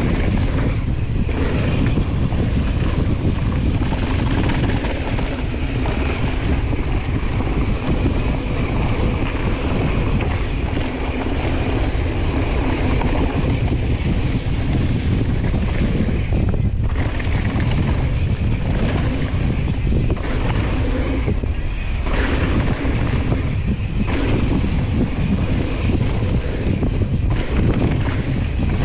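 Wind buffeting an action camera's microphone during a fast mountain-bike descent, mixed with the bike's tyres rolling over dirt and gravel. It is a loud, steady rush that dips briefly a couple of times.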